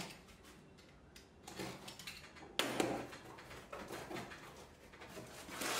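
Small cardboard box being cut open and its flaps pulled apart: scraping and rustling of cardboard and packing tape, loudest in a sudden rustle about two and a half seconds in and again near the end.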